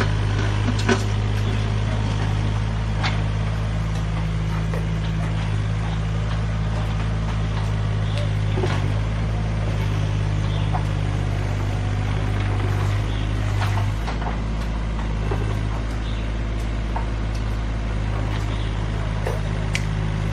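Mini excavator's diesel engine running steadily as it digs, its note shifting slightly about two-thirds of the way through. A few short knocks are heard from time to time.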